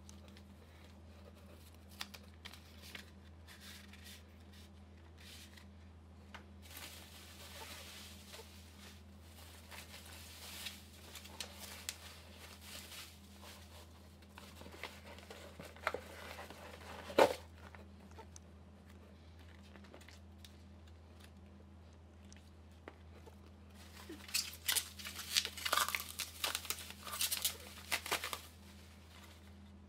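Bubble wrap and plastic packaging crinkling and rustling as it is handled and pulled open, with scattered clicks and one sharp snap about seventeen seconds in. A dense stretch of crinkling comes near the end, as a bubble-wrapped item is lifted out. A steady low hum runs underneath.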